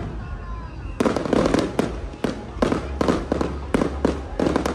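Fireworks display bursting: after a brief lull in the first second, a rapid string of sharp bangs, about three a second.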